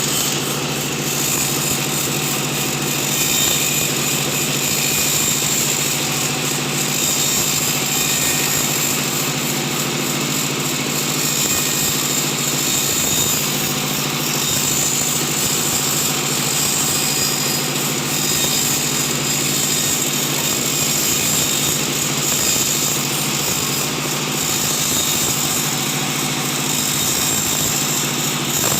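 Sawmill machinery running steadily: a constant motor hum with a high-pitched hiss above it.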